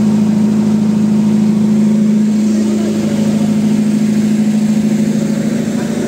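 Engine idling steadily, a constant low hum that does not change in pitch.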